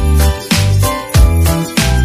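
Background music with a steady, heavy beat, about three beats every two seconds, over sustained pitched notes.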